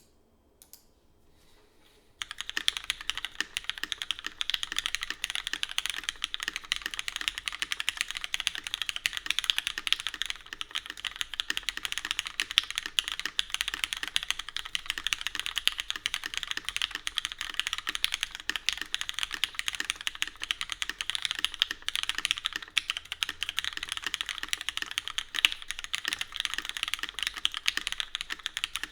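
Fast, continuous typing on a custom mechanical keyboard, the Daji Ocho Cuatro, fitted with lubed and filmed Cherry MX Black linear switches on an aluminium plate, with cherry-profile PBT keycaps. The typing starts about two seconds in.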